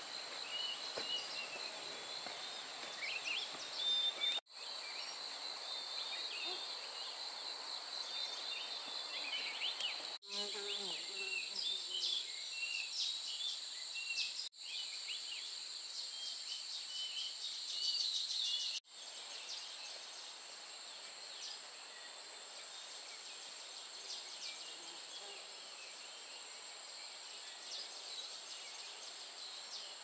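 Forest ambience: a steady high insect buzz, like cicadas or crickets, with birds chirping over it. The sound drops out for an instant four times.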